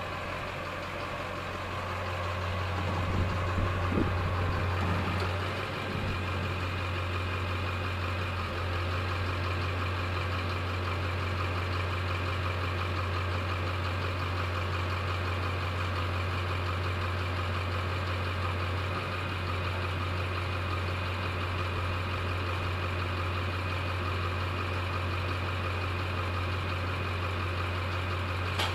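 An engine idling steadily, with a constant low hum and unchanging pitch, a little louder for a few seconds near the start.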